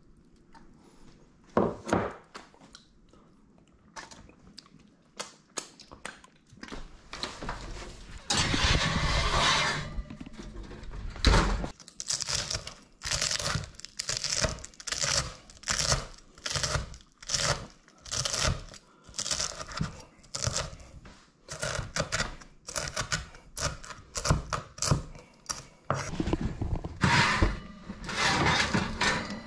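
A metal sheet pan scraping onto an oven rack and a loud thud, then a knife chopping crispy fried chicken skins on a wooden cutting board with a crunch, steady at about one and a half strokes a second.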